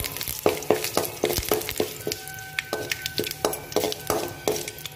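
Metal ladle stirring in a metal kadai, clinking and scraping against the pan several times a second, over the sizzle and crackle of mustard seeds, urad dal and curry leaves frying in oil for the tempering.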